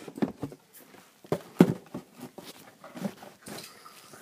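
Irregular light knocks and handling bumps on a plastic Beyblade stadium, with a Beyblade spinning in it.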